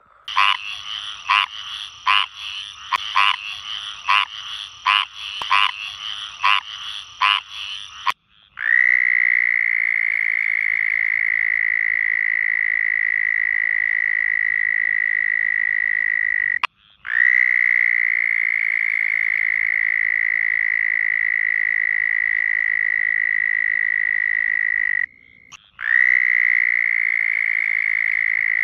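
A frog calling with a run of short, evenly spaced croaks, about ten in eight seconds. Then a toad, its vocal sac fully inflated, gives long level trills at one steady high pitch, each lasting about eight seconds with brief pauses between.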